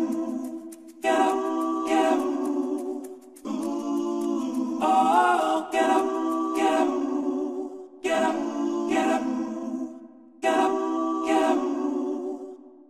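Layered vocal harmonies singing held chords in short phrases of a few seconds each, with brief breaks between them, fading out near the end.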